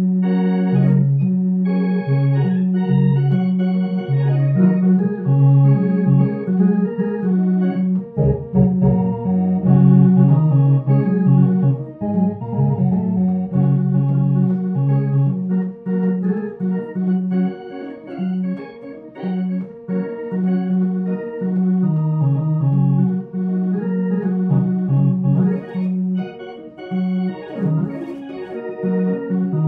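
Two-manual home spinet organ playing blues: a low bass figure rocking back and forth between two notes under chords and quick runs higher up.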